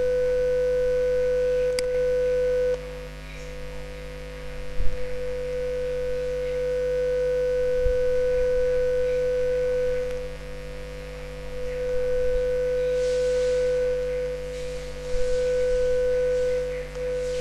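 A steady 500 Hz pure tone from a two-speaker sound-interference simulation. It swells and fades as the listening point is moved between spots where the two waves arrive in phase (loud) and opposite in phase (soft). It drops sharply about three seconds in, grows louder again around eight seconds, dips for a couple of seconds, then comes back up.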